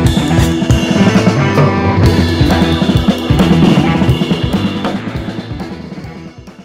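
Background music with a drum kit, fading out over the last couple of seconds.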